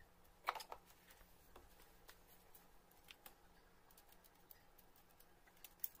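Faint scattered clicks and knocks of an electric chainsaw's guide bar and loose chain being handled and lifted off the saw body, the loudest about half a second in and another just before the end.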